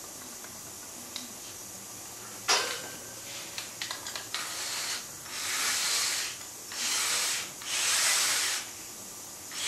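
Cordless drill-driver running in three short bursts, each about a second long, driving bolts through a wooden arm into a metal hub. Before them come a sharp knock and a few light clicks.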